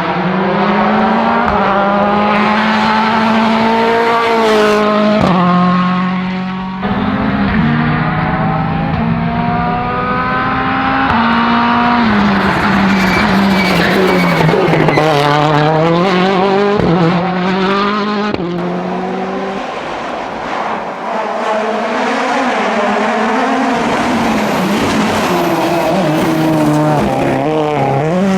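World Rally Car engine under hard acceleration, its pitch climbing and then dropping sharply at each gear change, several times over.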